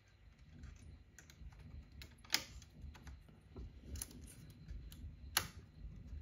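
Small plastic and metal clicks and handling rubs as a 3D printer's hotend is pushed back into the A1 extruder head and its clip area worked by hand, with two sharper clicks, one a bit over two seconds in and one near the end.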